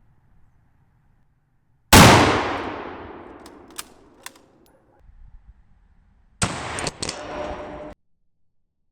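A single Mosin-Nagant rifle shot at the steel shell of a scroll compressor: a sharp crack that echoes and fades over about three seconds, with two sharp clicks during the fade. A second loud burst with clicks and a faint ringing follows and cuts off abruptly.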